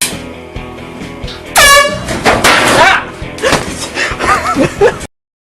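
Air horn blaring with a steady tone, and about a second and a half in a person's loud startled yell, followed by more shouting.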